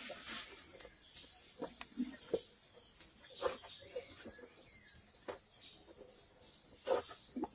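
A steady, pulsing high-pitched insect chorus of jungle crickets. Over it come scattered snaps and rustles of leaves and twigs in the undergrowth as an Asian elephant walks through it. The loudest crack comes about seven seconds in.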